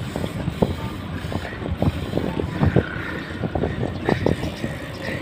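Wind rushing over the microphone of a camera riding on a moving mountain bike, with frequent irregular knocks and rattles from the bike rolling over the road.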